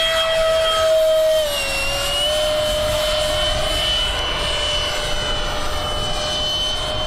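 Electric motor and propeller of a small RC model plane whining at a steady pitch, dipping briefly and settling again about a second and a half in.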